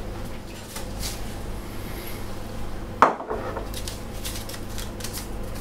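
Kitchenware clinking and knocking, with one loud metal clank about three seconds in as the wok is set down on the cooktop.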